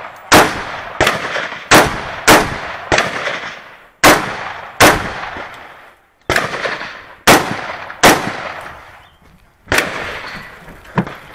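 A rapid string of about eleven rifle shots, spaced from about half a second to a second and a half apart, each with a long echoing tail; the last comes a second or two before the end.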